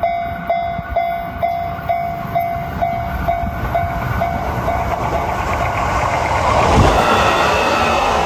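Japanese level-crossing bell ringing its steady clang about twice a second, then an electric train passing through the crossing grows loud and drowns the bell out, at its loudest about seven seconds in.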